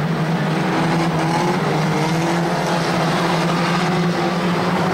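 Engines of several banger racing cars running together as the pack laps the oval, a steady drone of overlapping engine notes whose pitches shift slightly as the cars accelerate and lift.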